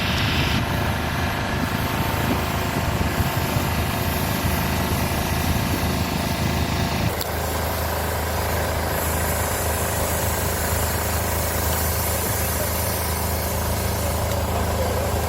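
A vehicle engine running steadily at idle, with a rougher, uneven rumble for the first seven seconds that settles into a steady low hum.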